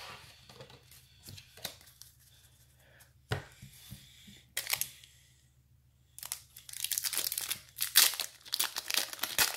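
Foil wrapper of a trading card pack being picked at and torn open, a dense crinkling from about six seconds in, after a few scattered handling clicks.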